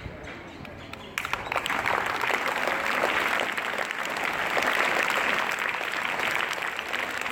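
Crowd applauding: a burst of many people clapping breaks out about a second in and keeps going steadily.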